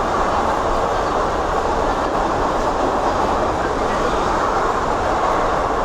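Express train running through a railway station: a steady, loud rumble of wheels on the rails that holds level without rising or fading.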